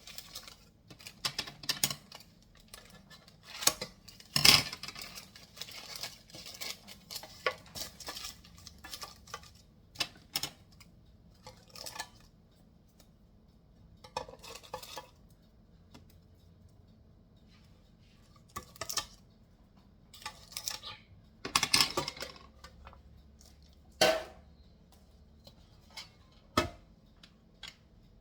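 Kitchen utensils and dishes clinking and knocking at irregular intervals, with a few louder clatters.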